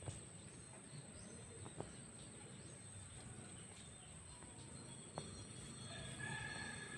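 Faint rural yard ambience: a steady high-pitched insect drone, a few light clicks, and birds calling near the end.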